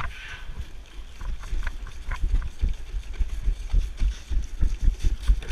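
Running footsteps thudding in a quick, even rhythm of about three a second, with the jolting of a body-worn action camera and the player's gear.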